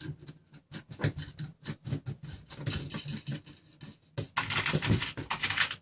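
Small steel nuts and washers clicking and rattling against threaded rod during hand assembly. The clicks come irregularly, with a denser rattle about four seconds in.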